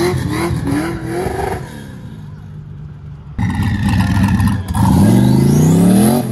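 A car engine burbles with a wavering pitch as it drives off, then fades. A small pickup truck's engine comes in suddenly loud about halfway through and revs up hard in one long rising pull as the truck accelerates away.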